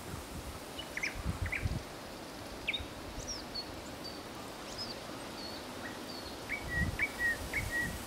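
Nightingale singing: sharp down-sweeping notes and short whistles, then a run of repeated lower chirps near the end. Wind rumbles on the microphone in gusts.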